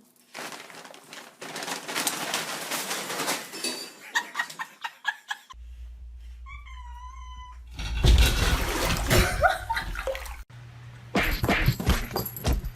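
A domestic cat meows, one wavering, drawn-out call about halfway through, among other noises that change abruptly at several cuts.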